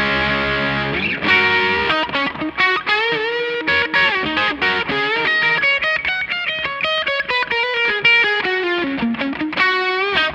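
Electric guitar, a Fender Stratocaster, played through a breadboarded DIY Tube Screamer overdrive circuit. A held chord rings for about a second, then fast single-note lead lines with string bends, all with a distorted, overdriven tone.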